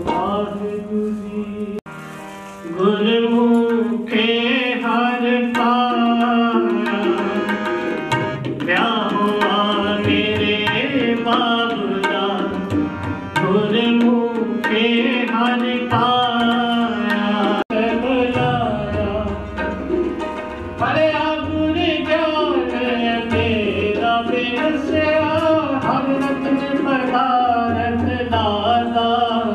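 Music: tabla drumming under a melody of long held notes that bend and slide in pitch, with a short drop in level about two seconds in.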